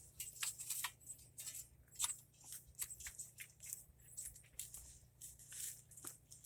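Loose soil and mulch being dug through by hand to pull out potatoes: faint, irregular crunching and rustling with scattered small clicks.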